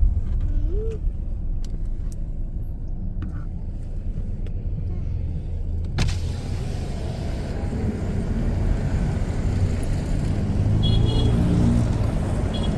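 Steady low rumble of a vehicle, with a sharp click about six seconds in, after which a hiss rises.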